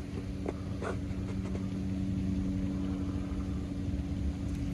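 A motor running steadily, a constant engine hum over a low rumble, with a couple of light clicks in the first second.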